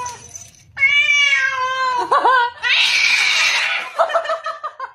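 Tabby house cat yowling: one long drawn-out yowl falling slightly in pitch, a couple of short bent cries, then a breathy hiss lasting about a second, and more short cries near the end. It is the agitated yowling of a jealous cat that sees its owner holding another cat.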